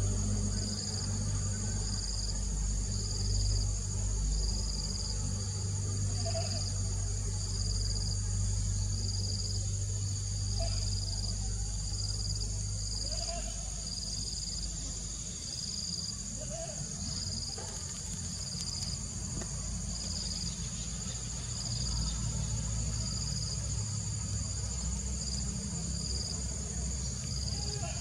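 Insects trilling steadily at a high pitch, with another high insect note pulsing about once a second. Beneath them runs a steady low rumble.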